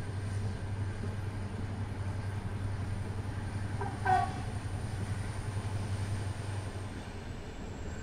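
Steady low rumble and running noise of a moving passenger train, heard from inside the carriage, with a brief tone sounding once about four seconds in.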